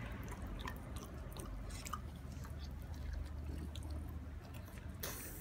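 French bulldog chewing pieces of sweet potato, with wet smacking and crunching clicks coming irregularly. A short louder burst of noise comes near the end.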